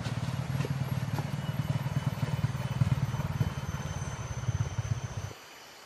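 A small engine running steadily with a low, fluttering hum, cutting off suddenly near the end.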